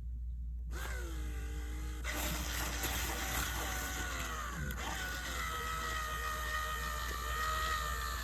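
Small electric gear motor of a homemade model garage door running, its whine sliding down in pitch at first and settling to a steady tone about five seconds in, with gear noise underneath.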